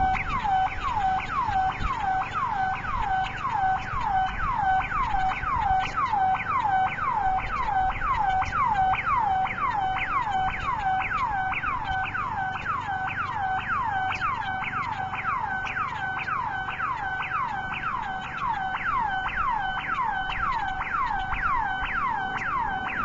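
Burglar alarm siren sounding without a break: a fast train of falling sweeps, about two a second, repeating evenly. It is a false alarm.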